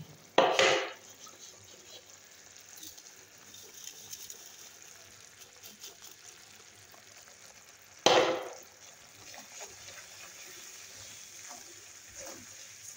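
Hot sugar syrup sizzling and bubbling faintly in an aluminium kadai as a besan mixture is poured in and stirred with a wooden spatula. Two sudden loud bursts of noise, each about half a second long, come near the start and about eight seconds in.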